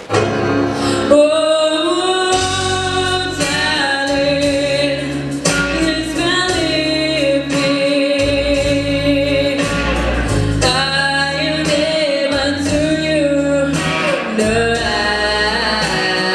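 A solo singer with instrumental accompaniment, starting right away. The voice holds long notes over a steady bass line.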